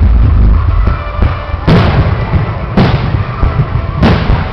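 Fireworks going off: three sharp bangs roughly a second apart over a steady low rumble.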